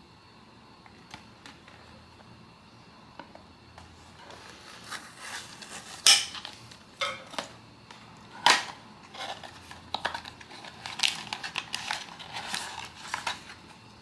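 Hands handling blind-box packaging: a run of sharp clicks and crinkles of cardboard and foil. The loudest come about six and eight and a half seconds in, and they grow busier toward the end.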